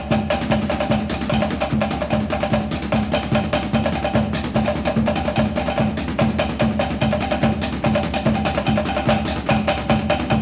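Background music with drums and percussion keeping a steady, fast beat over sustained pitched notes.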